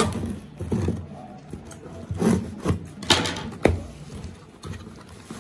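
Cardboard shipping box being opened by hand: scissors slit the packing tape, then the flaps are pulled apart. Scattered scrapes, rustles and knocks of cardboard are heard.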